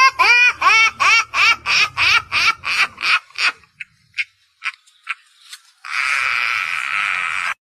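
High-pitched laughter, a quick even run of rising-and-falling 'ha' syllables at about three a second, fading out after about three and a half seconds. Near the end comes a steady hiss of about two seconds that cuts off suddenly.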